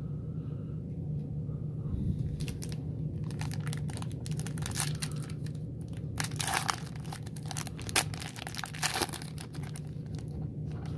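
Trading card pack wrapper crinkling and tearing as a hockey card pack is worked open by hand: irregular crackles starting about two seconds in and running almost to the end. The packs are hard to open.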